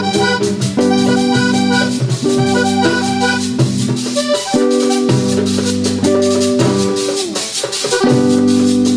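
A vallenato band plays an instrumental passage: the button accordion holds chords in short phrases separated by brief breaks, over a fast rasping guacharaca scraper, caja drum and guitar.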